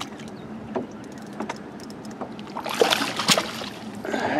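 Water splashing as a largemouth bass is scooped into a landing net beside an aluminum boat, loudest about three seconds in, with a few light knocks before it and a steady wash of water and wind underneath.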